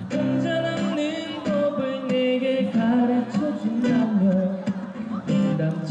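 Live singing of a pop ballad over strummed acoustic guitar.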